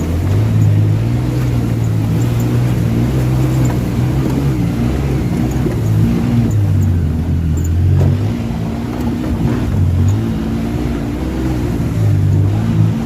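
Yamaha YXZ side-by-side's three-cylinder engine running under throttle as it drives through a creek, its pitch rising and falling as the throttle is opened and eased off, over a steady wash of noise.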